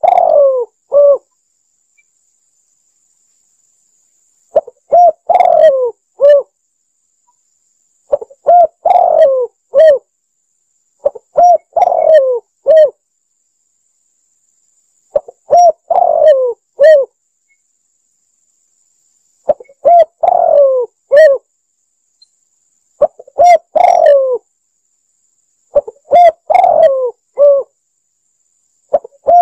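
Spotted dove cooing: each phrase is a few short coos running into a longer falling coo and a short closing note, repeated about eight times at roughly three-and-a-half-second intervals with silence between.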